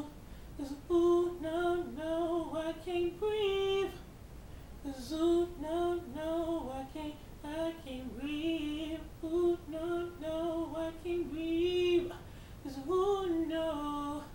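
A young man singing alone without accompaniment, in a high register, with sliding vocal runs and held notes. There are short breaks for breath about four seconds in and again near the end.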